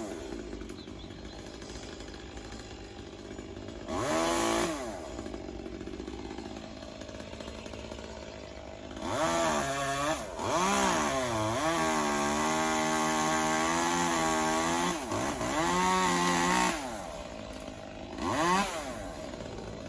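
Two-stroke chainsaw idling, revved up briefly a few times and held at high revs for about eight seconds midway through while cutting tree limbs, the pitch dipping and rising as it bites.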